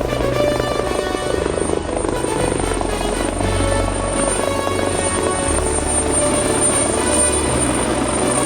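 AgustaWestland AW139 twin-turbine helicopter's rotor and engines running steadily as it comes in to land, heard under background music with a steady bass line.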